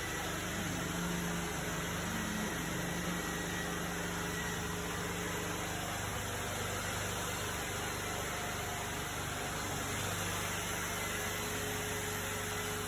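Steady hiss with a low mechanical hum, unchanging throughout.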